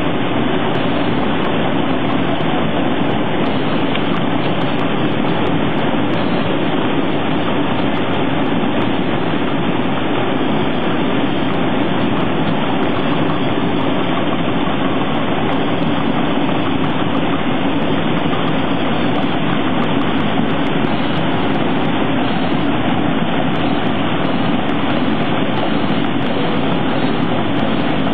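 Water rushing steadily over a rocky cascade, a loud, even roar of falling water.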